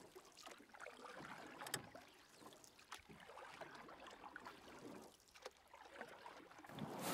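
Faint water lapping and trickling against a canoe hull, with a few small knocks.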